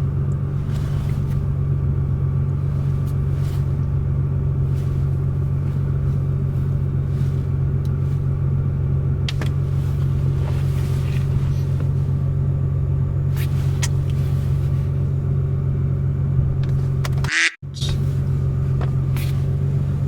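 Steady low rumble of a car heard from inside the cabin, with a few faint clicks. The sound cuts out briefly about seventeen and a half seconds in.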